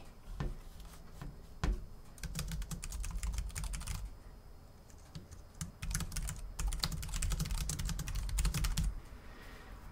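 Typing on a Matias aluminum wireless keyboard for Mac: a couple of lone key clicks, then two bursts of fast typing with a pause of about two seconds between them.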